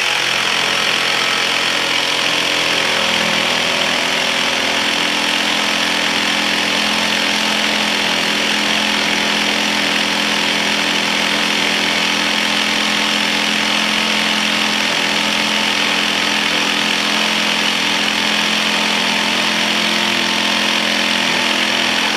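21V cordless jigsaw running steadily as its blade saws through a 2x2 hardwood piece with orbital action off, a slower cut than in plywood.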